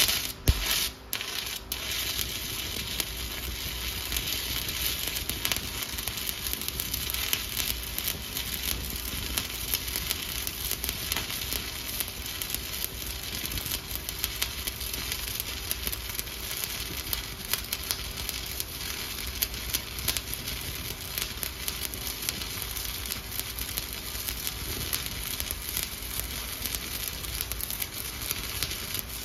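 Stick (SMAW) welding arc on a 7018 electrode, welding a vertical 1-inch steel test coupon. The arc is struck with a loud pop right at the start, then burns with a steady crackle and sizzle.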